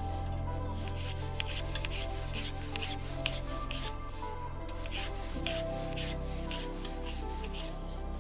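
Small kitchen knife dicing a tomato on a plastic cutting board: an irregular run of light taps and cuts, a few a second. Soft background music with sustained low notes plays underneath.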